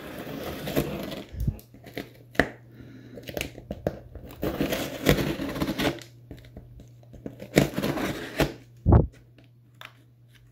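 A multitool knife blade slitting packing tape along a cardboard box's seams: scratchy tearing and crinkling of tape and cardboard in a few stretches, broken up by knocks as the box is handled, the loudest a thump about nine seconds in.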